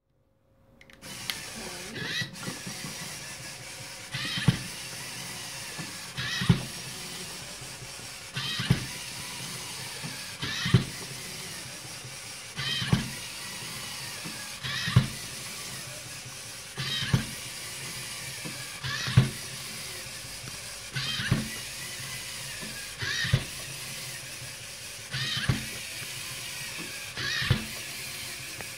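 LEGO Mindstorms EV3 biped robot walking: its servo motors and Technic gears whir steadily, with a plastic knock about every two seconds, one for each step.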